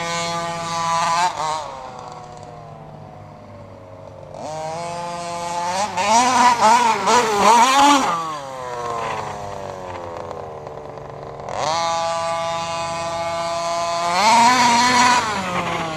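The 46cc RCMAX two-stroke gas engine of a 1/5-scale Losi RC car revving hard three times as it is throttled up and backed off, its pitch climbing and then sliding down after each run. The middle run warbles up and down.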